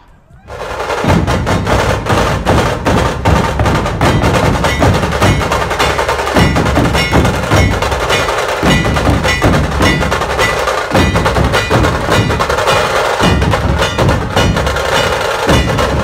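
Dhol-tasha drumming: a dhol tasha pathak's big barrel drums (dhol) and stick-beaten tasha drums playing a fast, dense beat, starting about half a second in.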